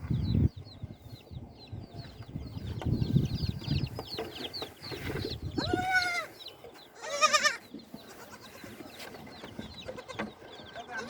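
Young goat kids bleating, two wavering calls about a second apart halfway through. Chicks cheep continuously in the background.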